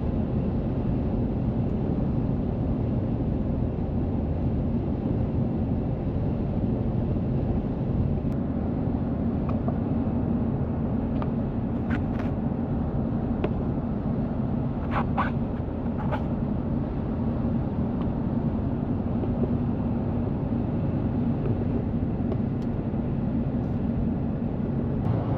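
Steady road and engine noise inside a car's cabin while driving on the highway, with a few faint clicks in the middle.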